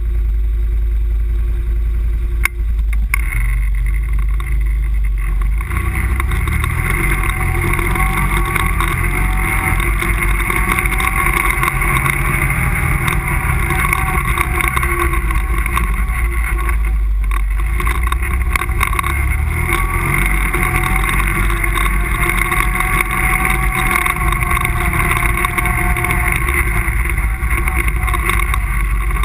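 ATV engine running as the quad is ridden, its pitch drifting up and down with the throttle. It sounds fuller from about five seconds in.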